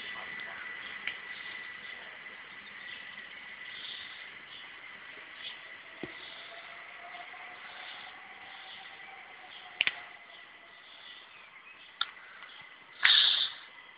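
Distant electric train approaching: a faint steady hiss with a faint whine that rises and then falls in pitch midway, a few sharp clicks, and a short louder rustle about a second before the end.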